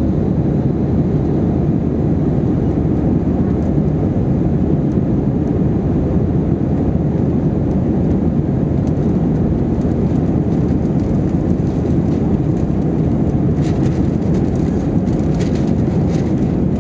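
Steady low cabin roar of an Airbus A321-231 airliner, heard from a passenger seat: engine and airflow noise. A few faint clicks come near the end.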